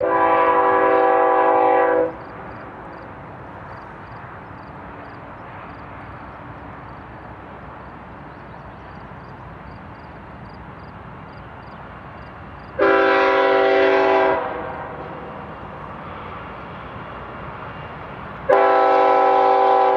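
Freight locomotive's multi-chime air horn sounding a chord of several tones three times: a blast of about two seconds at the start, a shorter one about thirteen seconds in, and another beginning near the end. Steady noise of the distant approaching train between the blasts.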